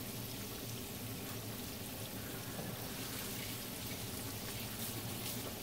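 Kitchen tap running steadily into the sink while jalapeño peppers are rinsed under it.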